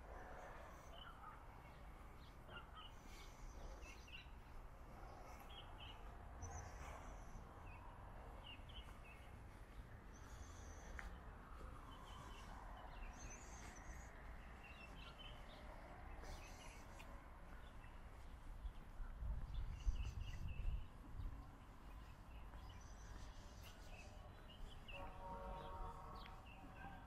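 Small birds chirping now and then over a low, steady outdoor rumble. About two-thirds of the way through the low rumble swells louder for a couple of seconds.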